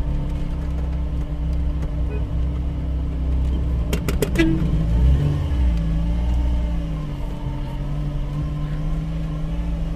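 Motor vehicle engine running steadily at idle, close by. A quick cluster of sharp clicks sounds about four seconds in.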